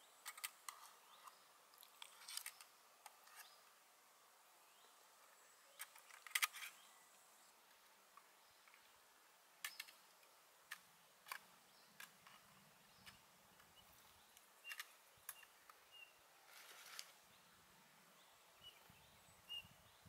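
Near silence, broken by scattered faint clicks and snaps; the loudest is a cluster about six seconds in. A few short, faint high chirps come near the end.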